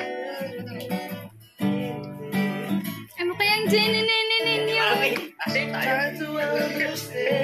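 Acoustic guitar strummed in chords, with a man singing a melody along with it. The playing drops out briefly about a second and a half in and again past the middle.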